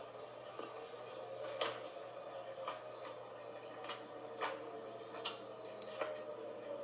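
Distant tornado warning siren sounding faintly as a steady tone, its pitch slowly sinking, with about ten irregular sharp ticks over it.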